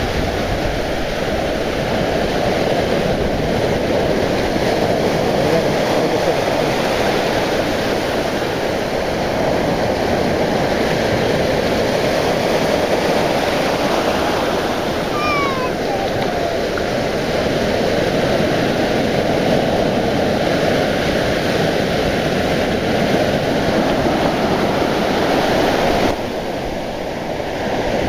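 Sea surf breaking and washing up the beach: a steady rush of water. About halfway through, a short sound falls in pitch over the surf.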